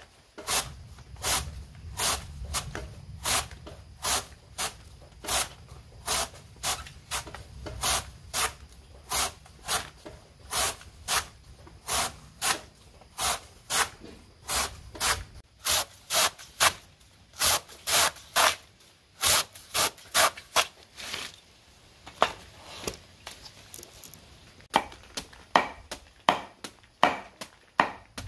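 Machete slicing thin rounds off a banana stem, steady strokes about one and a half a second, speeding up about halfway. Near the end, quicker, irregular chops of the slices against a wooden block.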